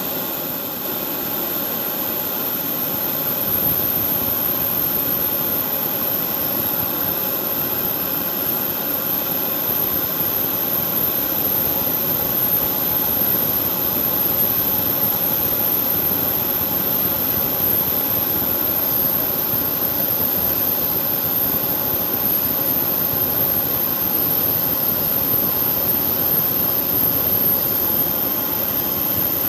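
Jet engines of an Airbus A320 airliner running at taxi power, a continuous loud rush with a steady high whine. It grows a little louder a few seconds in, then holds steady.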